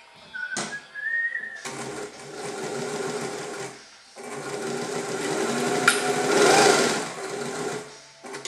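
Freshly serviced Adler 1217 industrial sewing machine stitching through leather in two short runs with a brief stop between them. A click and a short rising whine come about half a second in, before the first run, and there is a sharp click partway through the second run.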